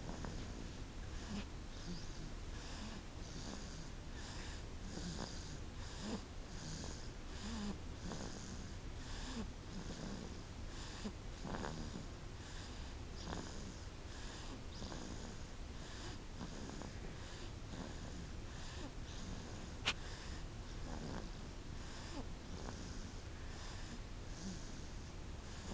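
Soft, wheezy snoring, the breaths coming quickly, a little more than one a second. A single sharp click about twenty seconds in.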